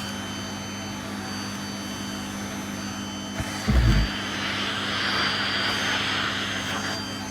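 Vacuum cleaner running steadily, its motor giving a constant whine over the rush of air. There is a brief low bump about four seconds in, after which the airflow hiss grows louder.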